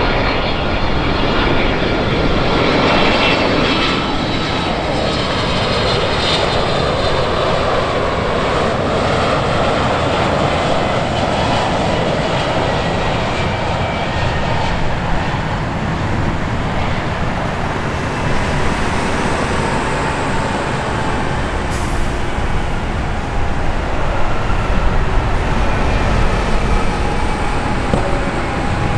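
Boeing 767-300ER's twin turbofan engines as the jet flies past on final approach and lands: a steady jet roar with a thin high fan whine. The tone sweeps slowly as the aircraft goes by, and the low rumble builds near the end.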